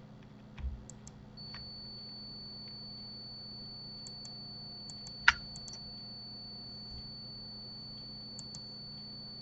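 Scattered computer keyboard and mouse clicks, a few light ones and one sharp louder click about five seconds in, over a steady electrical hum and a faint high whine.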